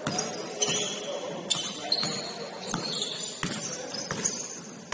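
Basketball bouncing on the court several times at an uneven pace, the loudest bounce about a second and a half in, mixed with high-pitched sneaker squeaks.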